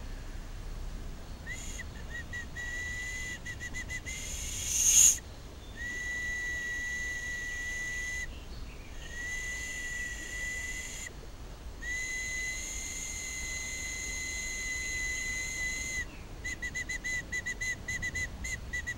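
A freshly made willow-bark whistle being blown for its first trial, giving a shrill single-pitched tone. It starts with short toots, has a brief loud burst about five seconds in, then three long held notes, and ends in a quick fluttering run of toots.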